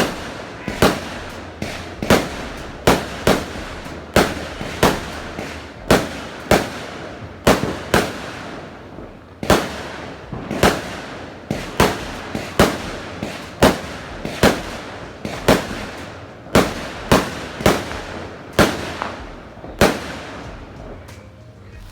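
Fireworks going off in a steady barrage: sharp bangs about once or twice a second, each with a short echo, thinning out near the end.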